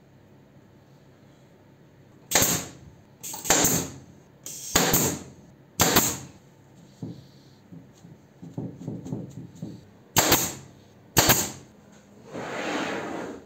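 Pneumatic nail gun firing nails into pine frame joints: six sharp cracks, four in quick succession and then two more after a pause, each with a short hiss. Near the end comes a longer scraping sound of the wooden frame moving on the workbench.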